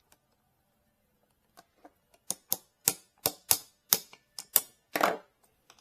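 A quick run of about ten sharp clicks and taps, three or four a second, from hand work with a small tool on a plastic Traxxas battery connector as its metal pin is worked out. The run ends in a longer rattling click.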